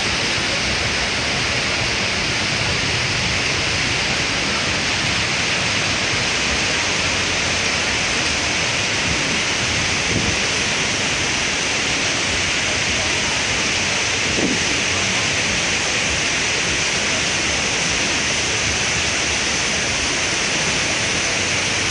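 Steady rushing of falling water from the Las Vegas volcano attraction's waterfall, an even hiss that stays at one level throughout.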